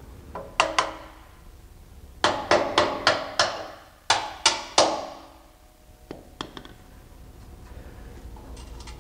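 Steel parts knocking together with a short metallic ring as the rear suspension stiffener bar's rod end is worked into its chassis bracket. The knocks come in quick bunches: two early, a run of five or six around the second and third seconds, three more just after, then a few lighter clicks.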